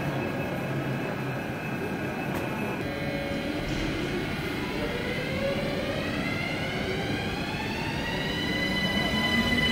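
ÖBB Cityjet electric multiple unit pulling away from the platform: a steady electrical hum, then from about halfway a rising whine of several tones from the traction motors as the train accelerates, levelling off near the end.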